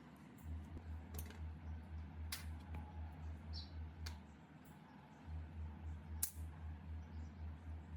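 A few sharp clicks and taps of tools and metal parts being handled, the loudest about six seconds in, over a faint low pulsing hum that stops briefly around the middle.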